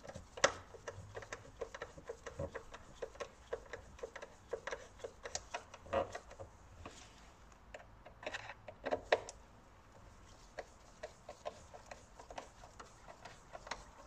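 Hand tool clicking in quick runs as the screws of a plastic air filter housing cover are tightened, typical of a ratchet, with a few louder knocks of tool on plastic about half a second in, at about six seconds and around nine seconds.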